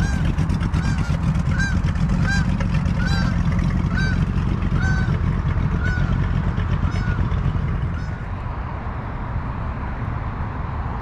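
A flock of geese flying over, honking in a steady run of calls somewhat faster than one a second that fades away about eight seconds in, over a steady low rumble.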